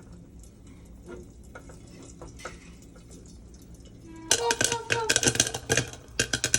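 Popcorn kernels popping in a covered pot on the stove: scattered faint pops at first, then from about four seconds in a rapid, loud run of pops.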